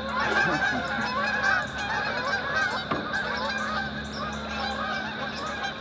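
A flock of geese honking, many calls overlapping in a dense, continuous chorus.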